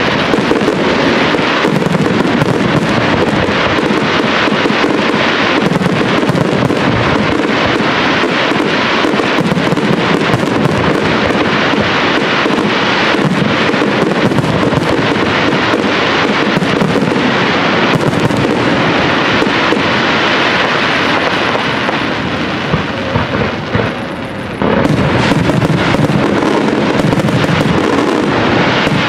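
Professional aerial fireworks display: shells bursting and crackling in rapid, near-continuous succession. It eases off a little about twenty-two seconds in, then is loud again at once from about twenty-five seconds.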